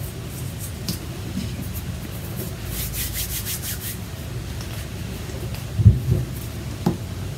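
Soft rubbing and rustling handling noise on the work table, with a short run of scratchy strokes about three seconds in.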